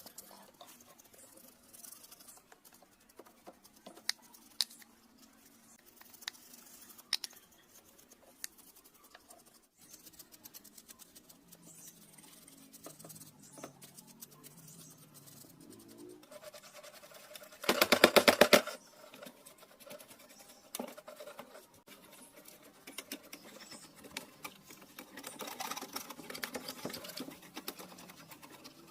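Small sharp clicks and taps of hands working on a cassette player's plastic and metal parts, with a short loud buzzing rattle about two-thirds of the way in.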